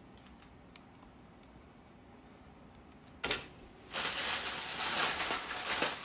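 Packaging being handled: a few faint clicks, then about three seconds in a short loud scrape, and from about four seconds on continuous rustling and crinkling as the plastic and foam packing is lifted out of the box.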